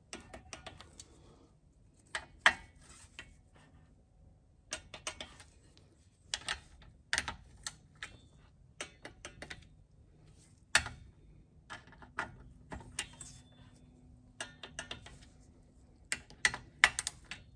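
Ratchet head of a torque wrench clicking in short runs as the oil sump cover bolts are tightened one after another in a crisscross pattern, with a few louder single clicks among them.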